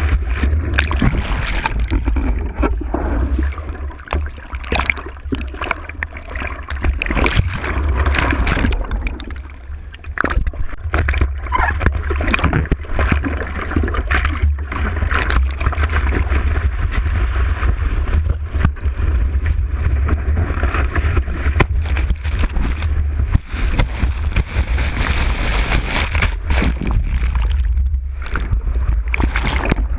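Seawater sloshing and splashing close to the microphone in many short sharp dashes, over a steady low wind rumble on the mic.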